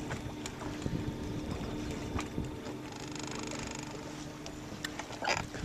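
Electric trolling motor running with a steady hum, with a thin high whine about three seconds in, moving the fishing boat along the shore; a sharp knock near the end.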